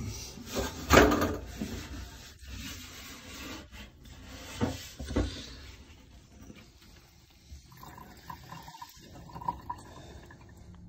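Gloved hand rubbing and scraping inside a metal diesel fuel tank, scooping out sludge through the access hole, with a loud knock about a second in and two more a little before the middle.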